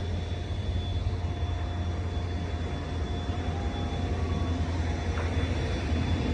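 Steady low vehicle engine rumble with traffic noise, without distinct passes or revs.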